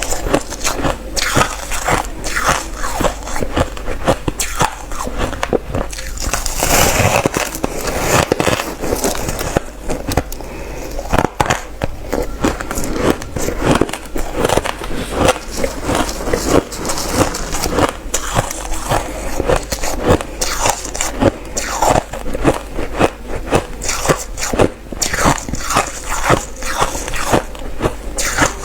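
Reshaped crushed ice being bitten and chewed close to the mouth: a dense, irregular run of loud crunches and crackles.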